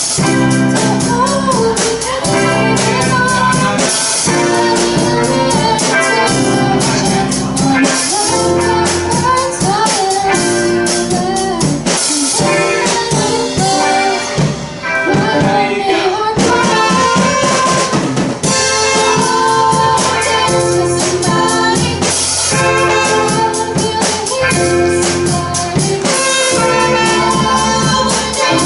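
A student rock band playing a song live: drum kit keeping a steady beat under bass, keyboards and a singing voice.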